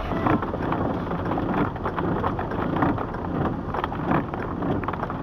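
Moderate rain falling on a vehicle's roof and windshield, heard from inside the cab: a steady hiss with many small irregular taps.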